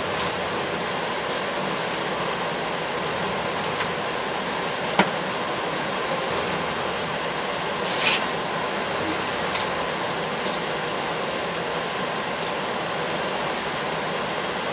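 Steady fan noise throughout, with a single sharp click about five seconds in and a brief papery rustle about eight seconds in, as the wrapped presents are handled.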